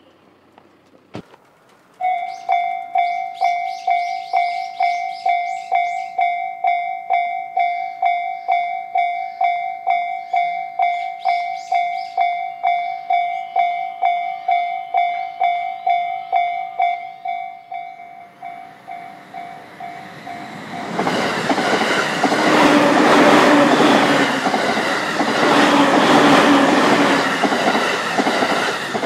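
Railway level-crossing alarm sounding its electronic bell, about two strikes a second, starting a couple of seconds in. Near the end an electric commuter train passes over the crossing, its wheels clattering on the rails and drowning out the bell.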